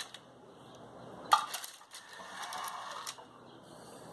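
Parchment paper rustling and crinkling in a glass baking dish, with a sharp knock about a second in.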